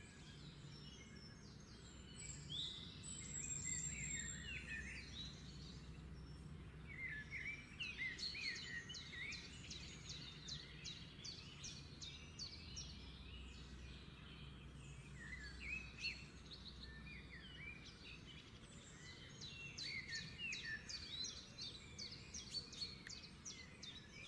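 Small birds chirping and twittering, many quick rising and falling chirps that come in clusters, over a faint steady low hum.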